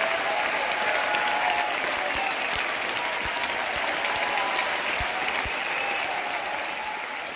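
Large crowd applauding and cheering, with scattered shouts and whoops in the clapping. The applause eases off gradually near the end.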